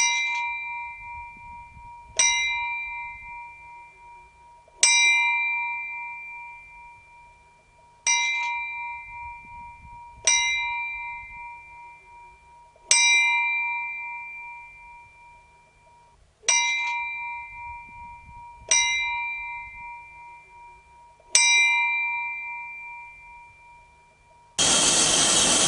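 A bell tolling slowly: nine single strikes, two to three seconds apart, each ringing out and fading before the next. Near the end a loud steady rushing noise cuts in abruptly.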